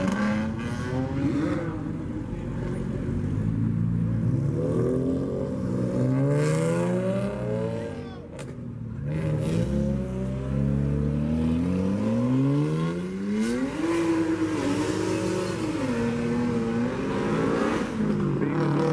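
Car engines revving and accelerating, their pitch climbing and falling again and again, with a brief dip about eight seconds in.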